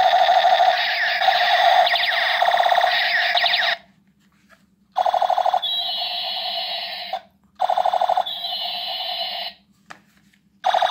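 Battery-powered toy revolver's electronic firing sound effect: a loud, rapid electronic rattle with a sweeping tone. It cuts off about four seconds in, then sounds again in two separate bursts of about two seconds each, with another starting at the very end.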